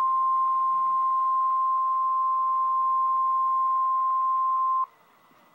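Emergency Alert System attention signal: the single steady weather-radio warning alarm tone, near 1 kHz, held for nearly five seconds and cutting off suddenly near the end, announcing a coastal flood warning.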